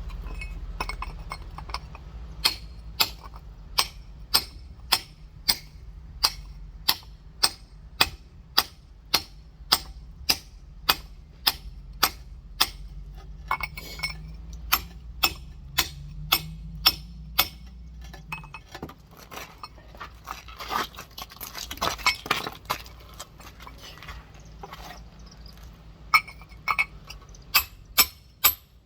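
Rock hammer tapping on the shell of a large geode, about two sharp knocks a second, to score a line for it to split along. The taps pause partway through for a stretch of rougher handling and scraping, then start again near the end.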